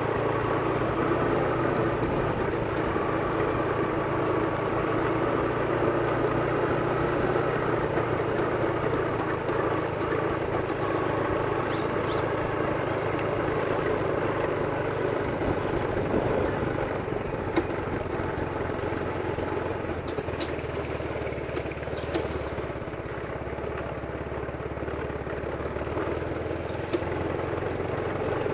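Engine of a small vehicle running steadily while riding along a dirt track, dropping a little in level about three-quarters of the way through.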